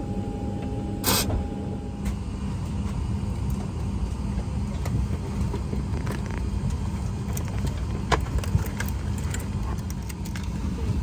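Steady low rumble inside an airliner cabin, with a sharp click about a second in and scattered light clicks and knocks later on. A thin steady tone stops about two seconds in.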